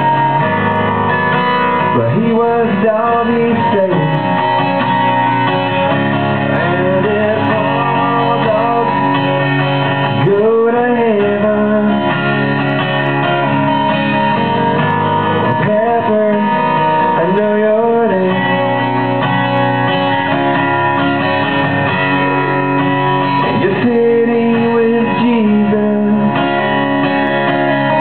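Solo acoustic guitar strummed steadily through an instrumental break between verses, with a voice briefly rising and falling over it every few seconds.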